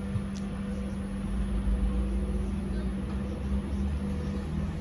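Steady cabin noise of a Sinara-6254 trolleybus, heard from inside: a low rumble with a constant electrical hum.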